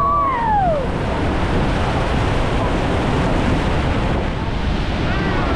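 Loud, steady rush of water with wind buffeting the microphone. A few voices cut through it at the very start and again near the end.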